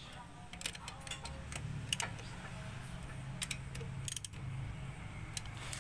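Irregular light metallic clicks and taps of a steel bar tool against the wheel hub of an Isuzu Elf truck as the hub nut's lock is set. A low steady hum sits underneath.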